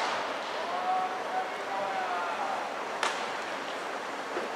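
Distant players shouting across the field, then a sharp pop about three seconds in and a fainter one near the end: a baseball smacking into a leather glove during a stolen-base drill.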